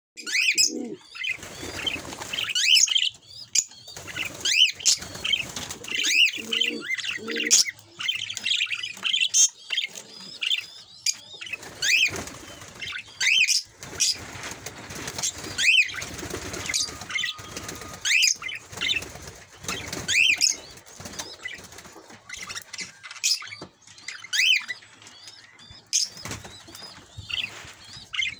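Caged pet parrots, budgerigars and a lovebird, chirping: short, sharp calls repeated every second or so, with scattered clicks.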